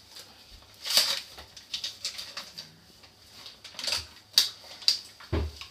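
Flour bag rustling and crinkling as it is opened and handled, with irregular sharp clicks and taps and a dull thump near the end.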